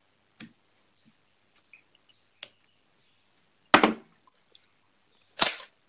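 Scattered clicks and knocks of small objects being handled on a work surface, a few sharp ones with the loudest two about two-thirds of the way through and near the end.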